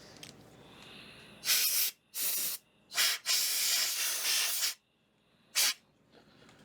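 Compressed air hissing in five short blasts from a blow gun, the fourth the longest at over a second.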